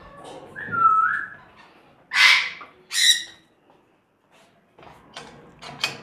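Caged parrots calling: a short whistled note about a second in, then two loud, harsh screeches just after two and three seconds. A few sharp clicks come near the end.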